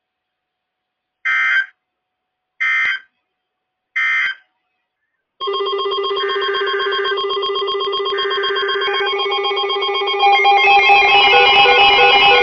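NOAA Weather Radio receiver giving three short chirping data bursts about a second and a half apart, the end-of-message code that closes a warning. A couple of seconds later a steady electronic alert sound of several held tones starts and grows louder and fuller near the end, with two more short data bursts mixed in: the alert for the next warning.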